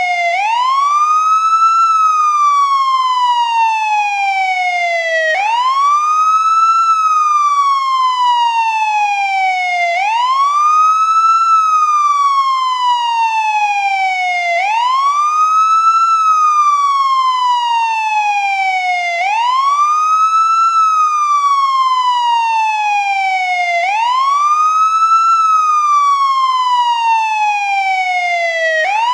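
American police siren on its wail setting: a single pitch that sweeps up quickly and then slides slowly back down, repeating about every four and a half seconds, six times over.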